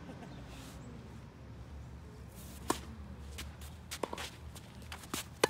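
Tennis rally: a sharp pop of a racket hitting a serve about two and a half seconds in, fainter hits and ball bounces from the far end of the court around four seconds, and another loud racket hit near the end. The near player's hits come from a 2014 Wilson Blade strung with Solinco Hyper G.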